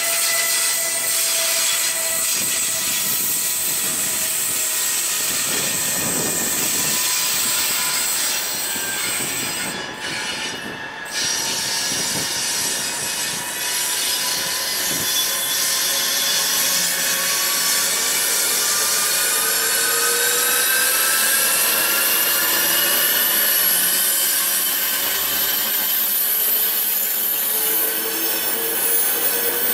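Locomotive-hauled passenger train rolling slowly along the station track, its wheels squealing in long, drawn-out tones that glide slowly up and down in pitch over a steady rumble of the coaches.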